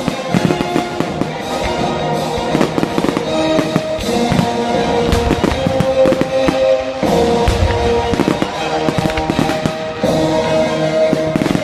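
Fireworks going off in rapid, irregular bangs and crackles, over music with held chords that change every few seconds.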